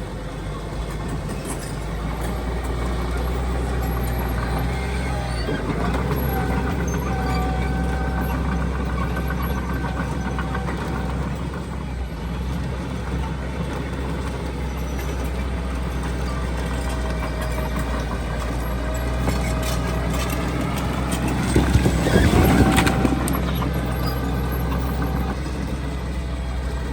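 Heavy diesel construction machinery running steadily, its engine pitch rising and falling as it works. About three-quarters of the way through comes a louder burst of noise with a brief pitch sweep.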